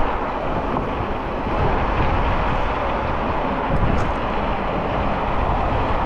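Steady rushing road noise from cars passing on a multi-lane road, heard while riding along the bike lane beside it, with a heavy low rumble throughout.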